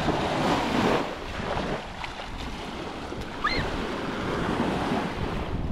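Baltic Sea waves washing onto a sandy beach, with wind buffeting the microphone. A brief high cry about three and a half seconds in.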